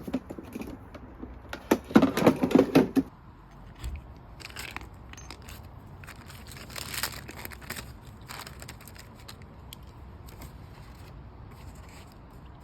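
Packaging being handled and torn open during an unboxing: crinkling, tearing and scraping in irregular bursts, loudest in the first three seconds, then fainter scattered rustles and clicks.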